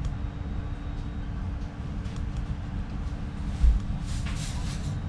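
Steady low rumble of a passenger train carriage's interior as the train rolls along, with a faint steady hum. There is a single low thump about three and a half seconds in, and a soft hiss shortly after.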